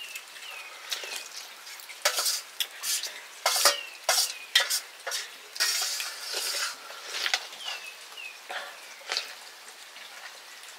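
A metal utensil scraping and clinking against metal cookware in quick, irregular strokes, busiest in the middle. A bird's short falling chirps repeat in the background, often two at a time.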